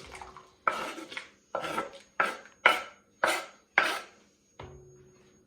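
Metal utensil clattering and scraping against cookware as cubed potatoes are tipped into a pot of boiling water: about six sharp clatters in quick succession, then quieter near the end.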